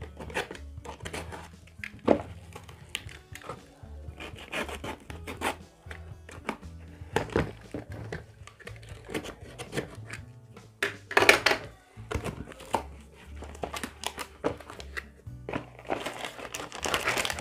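Cardboard shipping box and paper being torn open and crumpled by hand, irregular rustling and tearing with louder bursts about two-thirds of the way through and near the end, over background music with a steady bass line.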